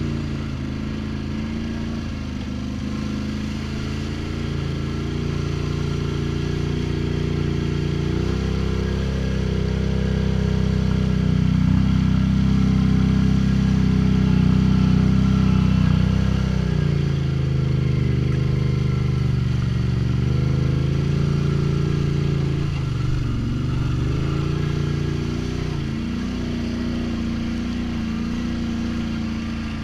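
Snorkelled ATV engine running under changing throttle while riding: the note rises about eight seconds in, holds high for several seconds, drops back around seventeen seconds and dips briefly again a few seconds later.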